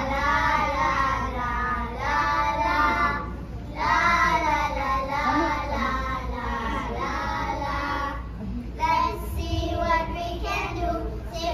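Young children singing a song, in three sung phrases with short breaks between them.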